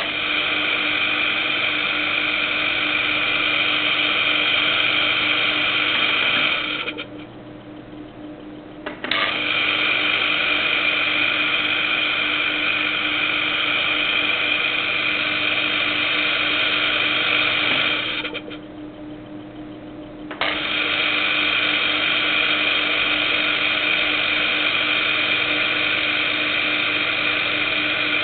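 Hermetic piston compressor running with a loud, steady mechanical whir over a constant hum. About seven seconds in and again about eighteen seconds in, the whir fades away for around two seconds, leaving only the hum, then cuts back in suddenly.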